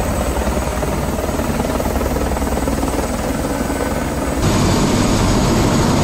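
Helicopter turbine and rotor running as an Airbus AS350 lifts off and hovers close by, a steady loud throb. About four seconds in, the sound cuts abruptly to a louder, steadier helicopter noise.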